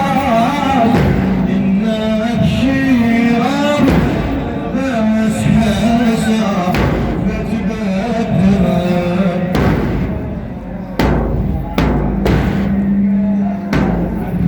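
A man's voice chanting a drawn-out, ornamented Arabic religious lament, with scattered percussion hits beneath it.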